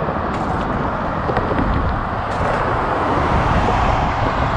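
Wind rushing over the camera microphone on a moving bicycle, mixed with tyre and road noise: a steady, rumbling rush. Two faint, brief high rattles come about half a second and two and a half seconds in.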